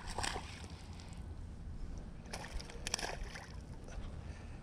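Water sloshing around a small fishing boat with a steady low rumble, and a few short noisy bursts just after the start and again around two and a half to three seconds in.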